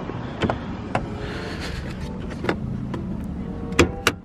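Car engine idling steadily, with a handful of sharp clicks or knocks over it, the loudest near the end.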